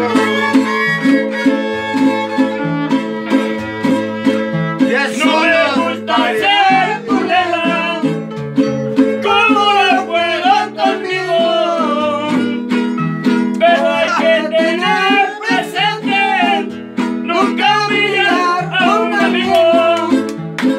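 String-band music: a violin melody over steady guitar accompaniment with a pulsing bass line.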